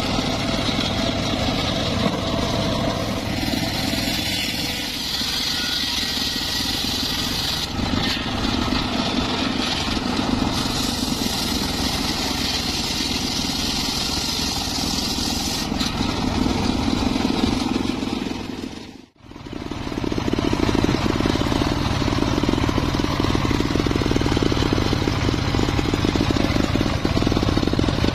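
Homemade circular saw bench running and ripping teak, a steady mechanical drone with the blade cutting through the wood. The sound drops out suddenly about two-thirds of the way through and picks up again at once.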